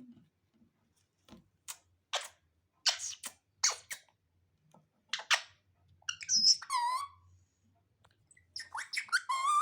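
Pet parrot giving short, harsh calls several times in the first half, then bending, warbling calls about six and a half seconds in and a quick run of them near the end. These are the agitated calls of a parrot that doesn't want to be petted.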